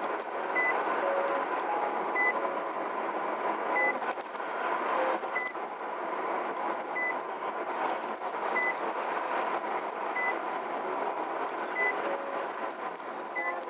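Car interior at driving speed: steady engine and tyre noise, with a short high electronic beep repeating evenly about every second and a half, nine times.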